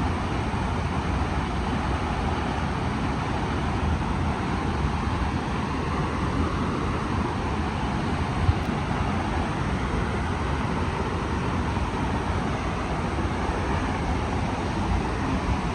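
Waterfall pouring into a deep pool: a steady rush of falling water that does not change.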